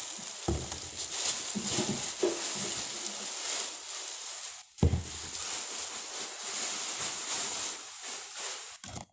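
Plastic rustling and crinkling as items are handled, with soft thumps about half a second and nearly five seconds in; it stops abruptly near the end.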